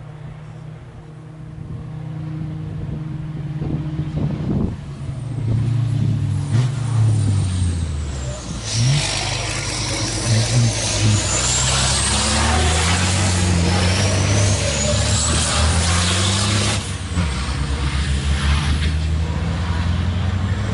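Turbo-diesel race trucks passing through a corner. The engine note swells from about two seconds in, then climbs and drops in steps as the trucks change gear. A hiss of tyre spray off the wet track rides over the engines through the middle.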